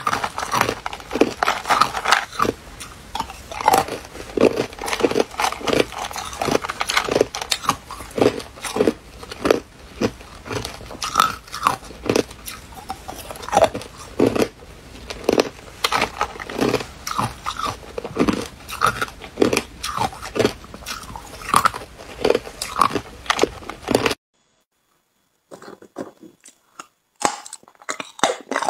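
Ice cubes being bitten and chewed close to the microphone: fast, irregular, loud crunches that cut off suddenly about four seconds before the end, followed by a few faint crunches.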